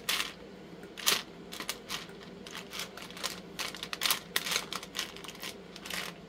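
Small flatback resin charms clicking and rattling against each other and their plastic container as a gloved hand sorts through them, in quick irregular clicks with the loudest about a second in.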